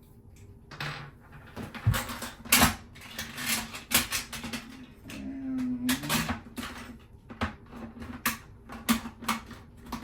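Irregular plastic clicks, taps and scrapes of a toilet seat's mounting bolts and nuts being worked into place by hand, starting about a second in, with a short squeak partway through.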